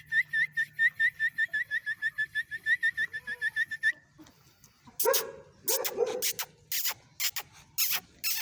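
A dog yelping in a fast, even run of short high-pitched yips, about six a second, that stops about four seconds in. Then come a few loud, harsh calls, typical of chickens squawking.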